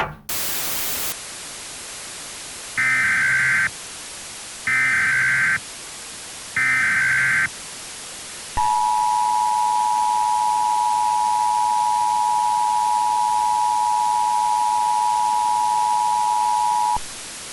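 Emergency Alert System broadcast tones over a steady radio hiss. A brief burst of static opens it, then come three short warbling data bursts of the SAME header, evenly spaced, and then the two-tone EAS attention signal, held steadily for about eight seconds before it cuts off near the end.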